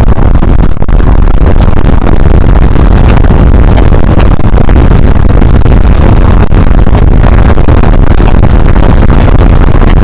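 Honda CBR125R motorcycle under way at riding speed: loud, steady wind rush on the action camera's microphone, with the bike's engine buried underneath.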